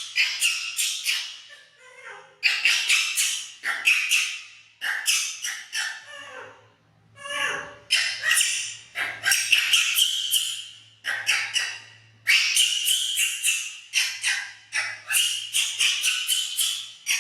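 Baby monkey screaming in rapid runs of high-pitched shrieks, broken by short pauses.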